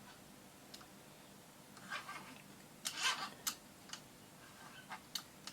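A few faint, irregular small clicks and taps over a low steady hum, busiest about three seconds in.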